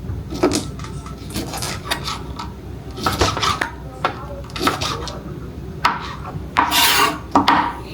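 Irregular rasping scrapes with clinks of kitchenware during food preparation, about half a dozen strokes of a second or less. The loudest cluster comes near the end.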